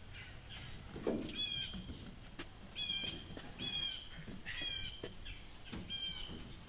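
A bird calling over and over in short, squeaky, slightly falling notes, about one a second and all at the same pitch. A low thump comes about a second in as the canoe is handled.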